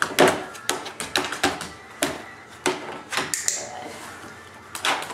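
A run of sharp clicks and knocks as a border collie's paws and claws step on and off a hollow plastic storage-bin lid, with the click of a dog-training clicker marking the step.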